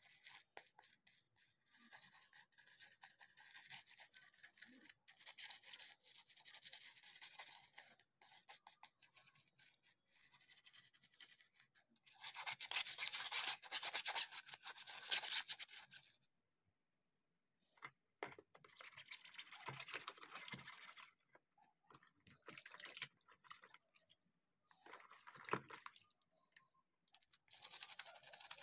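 Toothbrush bristles scrubbing a clear plastic phone case coated in toothpaste and baking soda paste, in bouts of rapid back-and-forth strokes with short pauses. The loudest bout comes about halfway through.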